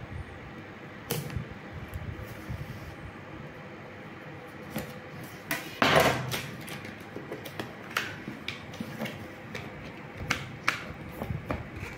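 Cardboard speaker box being handled and opened by hand: scattered taps, clicks and scrapes of card, with one louder scrape about halfway through.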